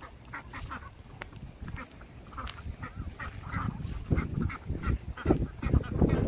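A flock of ducks quacking, many short calls overlapping, growing louder and busier about four seconds in.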